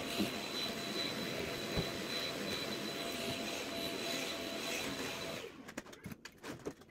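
Stick vacuum cleaner running steadily with a high whine, switched off about five and a half seconds in, followed by a few light knocks and clicks.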